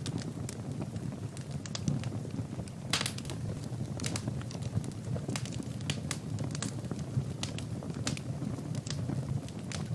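Wood fire burning in a fireplace: a steady low rush of the flames with irregular sharp crackles and pops from the logs throughout.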